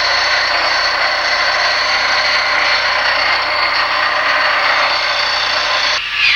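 Welding-shop equipment giving a loud, steady hiss that cuts off about six seconds in.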